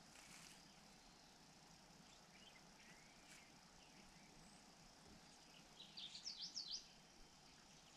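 A bird chirping: a quick run of about half a dozen high, sharp notes about six seconds in, with a few faint chirps before it, over faint steady outdoor background noise.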